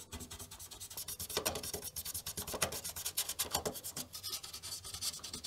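A fiberglass pen scrubbing the gold edge-connector contacts of a circuit board in rapid back-and-forth strokes, a dry scratchy rasp that polishes the contacts clean and shiny.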